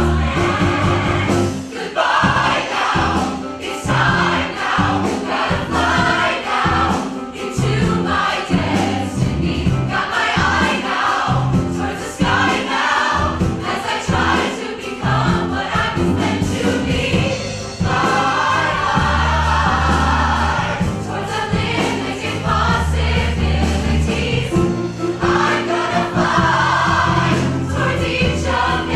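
A large choir of men and women singing together, backed by piano, drums and bass guitar, with a steady drum beat under the voices.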